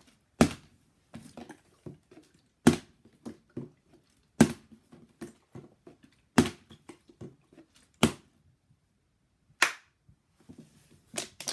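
Plastic water bottle being flipped and hitting a hard surface again and again: six loud thuds about every one and a half to two seconds, with lighter knocks and clatter in between.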